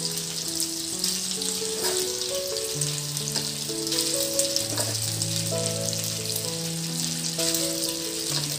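Chicken pieces frying in a little oil in a nonstick pan, with a steady sizzle and a spatula stirring them now and then. Soft background music with long held notes plays along.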